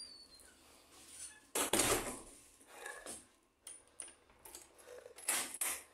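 Scattered handling noises: a few short rustles, the loudest about a second and a half in, and some light clicks.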